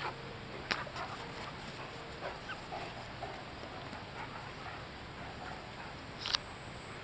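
Two Great Dane mix dogs play-wrestling, making short dog vocal sounds over the scuffle, with a sharp click about six seconds in.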